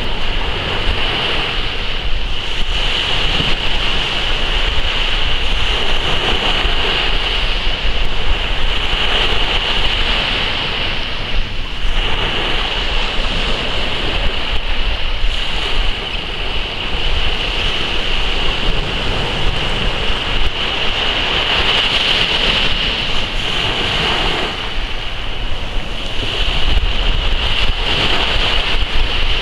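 Small waves breaking on a sandy beach and washing over a rock jetty, a steady surf that swells and eases from one wave to the next.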